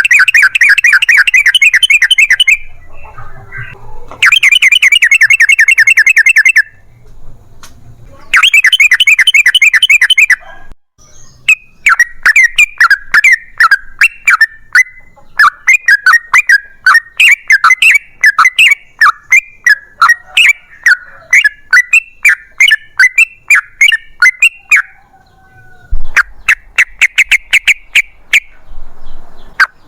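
Yellow-vented bulbul (trucukan) calling loudly: three rapid rolling trills of about two seconds each, then a long run of sharp chattering notes, and one more short trill near the end.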